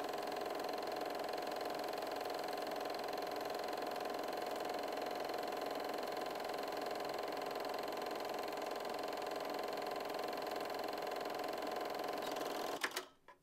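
Film projector running with a steady mechanical whir. Near the end there is a click and the whir stops abruptly.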